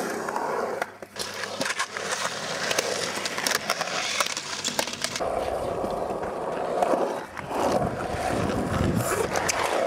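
Wheels rolling on a concrete skatepark, with frequent sharp clacks and knocks from tricks and landings. The rolling grows heavier and lower from about halfway through.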